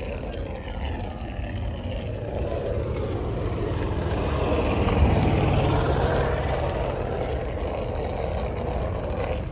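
A motor vehicle passing close by, its engine and tyre noise swelling to a peak about halfway through and then fading away.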